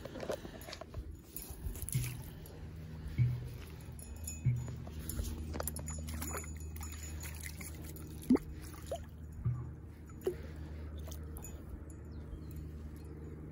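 Landing net being handled and dipped at the water's edge: intermittent water splashes and a few short knocks, the loudest about three, four and a half and eight seconds in, over a steady low rumble.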